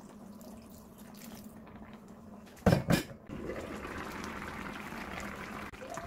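Two sharp knocks about two and a half seconds in, then a pan of potato stew bubbling steadily at the boil.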